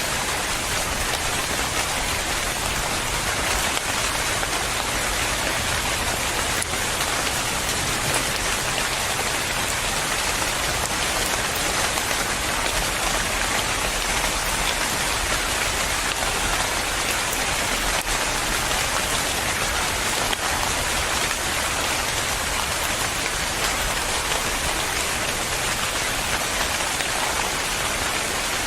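Steady rain falling, a continuous even hiss of drops with faint scattered patters and no let-up.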